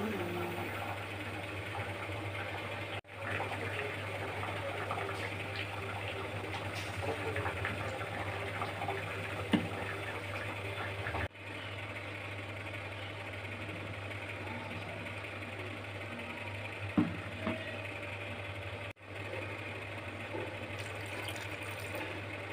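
Steady low hum with soft rustling, and a couple of sharp taps as ingredients go into a steel mixer-grinder jar; the sound cuts out briefly three times.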